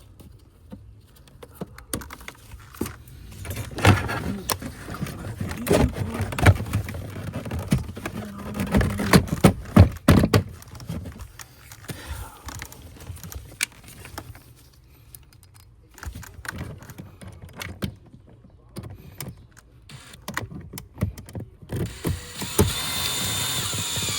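Clicks, knocks and rattles of hand tools and parts being handled while working in a car's engine bay, busiest in the first half. A short steady noise with a faint high whine near the end.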